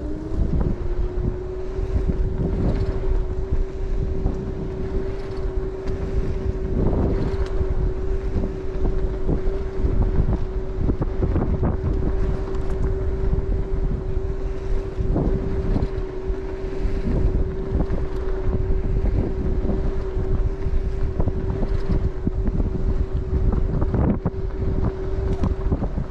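Bird electric scooter's motor giving a steady whine at cruising speed, with heavy wind buffeting the microphone. Scattered knocks come from bumps in the pavement.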